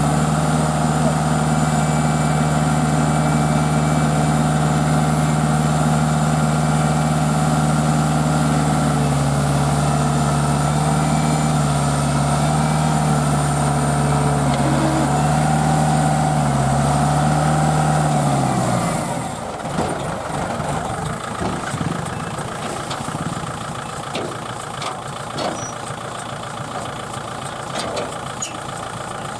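Tractor engine running hard at high revs, its pitch dipping and recovering a few times. About eighteen seconds in it drops off sharply to a lower, quieter running with scattered clicks.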